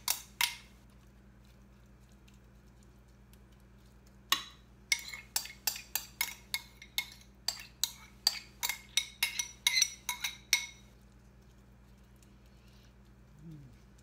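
Small glass bowl clinking in a quick run of sharp, ringing taps, about three or four a second, as the last of an herb marinade is scraped and knocked out of it. A couple of clinks come right at the start, then a quiet stretch before the run.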